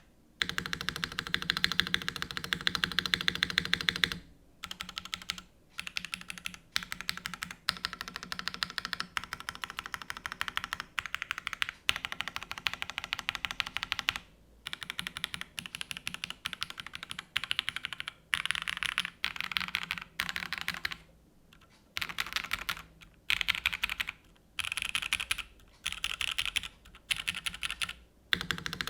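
Rama U80-A mechanical keyboard with stock-lubed C3 Tangerine v2 linear switches (62 g) and GMK keycaps being typed on quickly: dense, rapid keystrokes in runs of a few seconds, broken by brief pauses.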